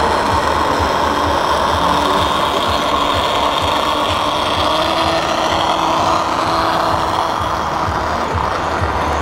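Steady running of a radio-controlled model semi truck's diesel engine sound from its sound module, an even drone with faint pitch lines that drift a little.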